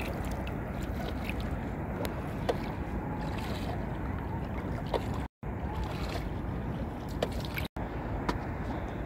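Steady low rumble of a boat under way, with wind on the microphone. The sound cuts out completely for a moment twice, once just past halfway and again about two seconds later.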